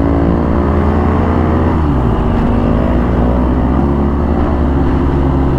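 BMW R1250GS boxer-twin engine running on the move over road noise. Its pitch slides gently down, then changes about two seconds in.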